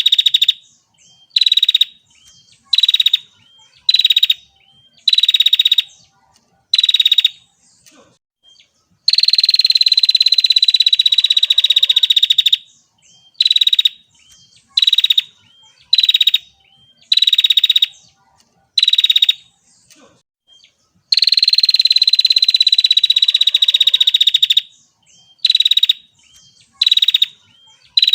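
Female prinia (prenjak) calling with a rapid, high trill in short bursts about once a second. Twice it runs into a long trill of about three seconds.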